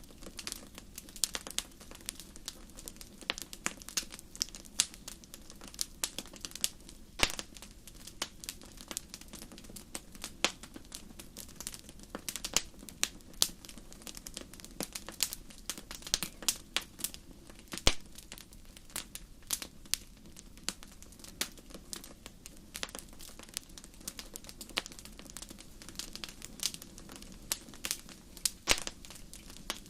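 Wood fire crackling: irregular sharp pops and snaps, several a second, with a few louder cracks, over a faint steady low background.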